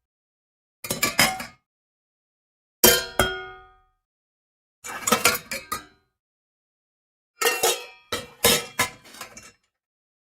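Metal pots and pans clanking and clattering against each other in about five short bursts. Each burst is a quick cluster of knocks with a brief metallic ring, with dead silence between them.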